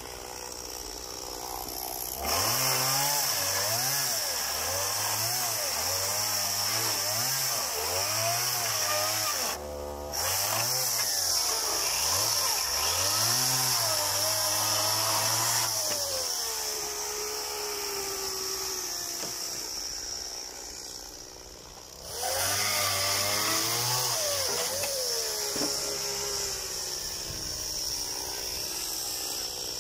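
Two-stroke petrol chainsaw sawing through wooden pallet crates, its engine revving up and down again and again as it cuts. About halfway through it drops to a steady idle, then revs and cuts again for a few seconds before settling back to idle.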